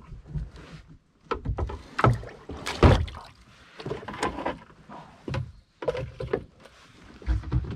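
Paddling a plastic fishing kayak: irregular paddle strokes and splashes, mixed with knocks of the paddle and gear against the hull, the loudest about three seconds in.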